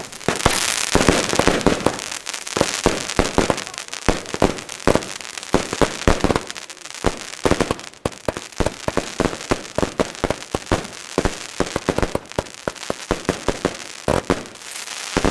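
Funke Finale salute battery firing: a fast, unbroken string of loud sharp bangs, several a second, that thickens into a dense cluster near the end.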